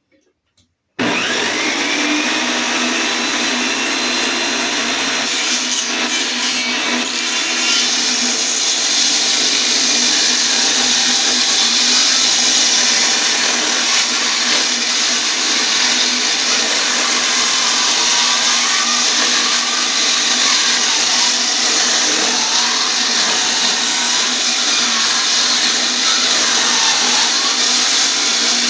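Power saw starting up about a second in and running steadily as it cuts lengthwise through a heavy ash log, its motor pitch wavering under load.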